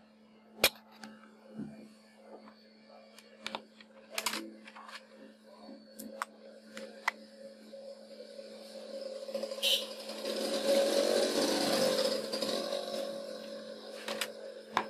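Handling of a Samsung B310E feature phone: sharp plastic clicks and taps as it is picked up and its back cover comes off. Past the middle a louder rushing noise swells for a few seconds and fades, over a steady low hum.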